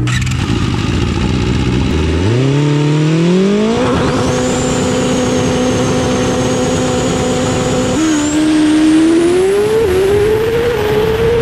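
High-revving racing engine that runs up in pitch and holds a steady high note for about four seconds. About eight seconds in it drops suddenly, then climbs again through a couple of quick shifts.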